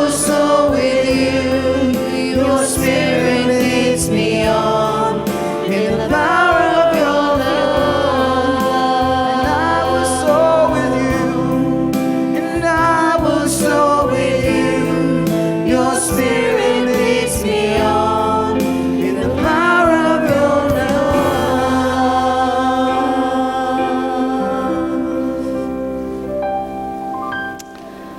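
Choir singing a Christian worship song with accompaniment, fading out near the end.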